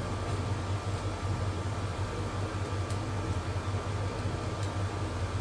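Steady low background hum with even room noise, and a couple of faint ticks about three and four and a half seconds in.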